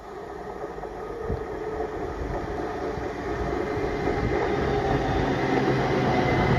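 A GWR multiple-unit passenger train approaching and running alongside the platform, growing steadily louder. A steady high whine builds up over the rumble near the end.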